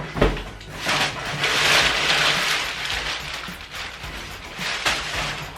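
Cardboard shipping box being opened by hand: a knock, then a couple of seconds of scraping and rustling cardboard, and a sharp click near the end.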